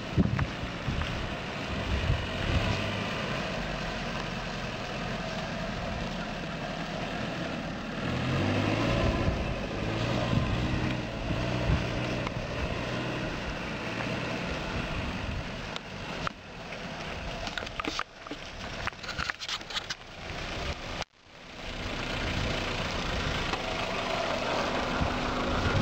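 Suzuki Jimny's four-cylinder engine running as it drives over rough grass, its revs stepping up and down, with wind buffeting the microphone. After a short break a little before the end, the engine idles close by.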